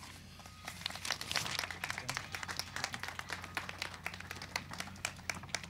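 Audience applauding: a small crowd's scattered hand claps that thin out and die away near the end.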